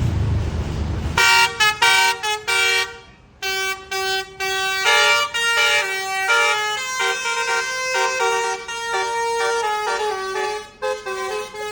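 Telolet bus horn, a multi-tone musical air horn, playing a fast melody of short, stepping notes with several tones sounding together. It starts about a second in, after a low engine rumble, and breaks off briefly near three seconds.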